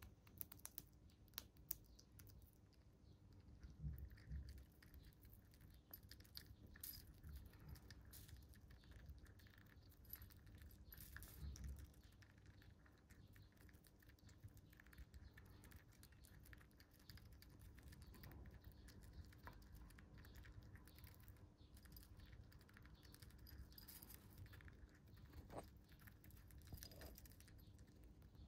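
Faint scattered clicks and rustles of a pet chipmunk picking through seeds, nuts and pellets in a ceramic food bowl and nibbling them, with a soft bump about four seconds in and another near twelve seconds.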